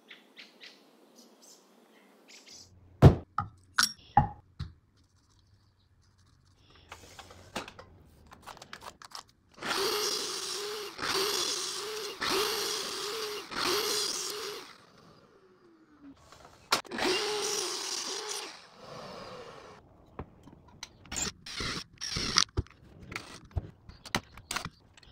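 Miter saw cutting wood: four cuts in quick succession, then one more, each with the motor's whine under load, and the blade winding down with a falling whine after each run of cuts. Scattered knocks and clicks of wood being handled come before and after.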